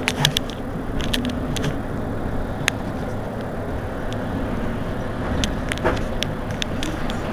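Mercedes-Benz Citaro C2 city bus idling at a stop, a steady low engine rumble, with scattered sharp clicks throughout.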